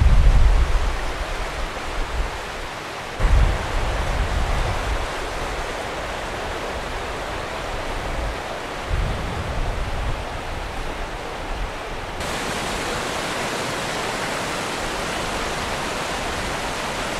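Fast-flowing mountain river rushing over rocks, a steady hiss, with low wind rumbles on the microphone a few times in the first half; about twelve seconds in the hiss turns steadier and brighter.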